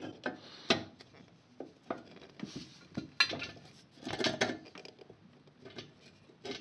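Basin wrench clicking and scraping against the metal nut under a tap as it is fitted and turned to tighten the loose tap, in irregular short bursts with sharp clicks between quieter gaps.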